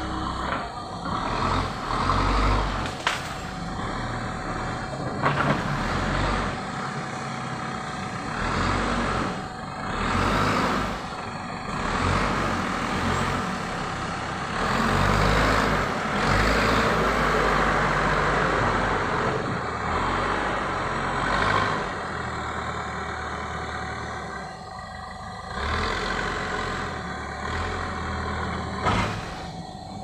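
Terex TLB 740S backhoe loader's diesel engine running and working, its note rising and falling in speed and load, with a few short sharp knocks.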